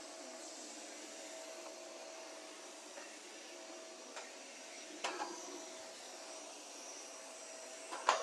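Steady vacuum-cleaner whirring with one held tone, a few light clicks along the way, and a louder knock near the end.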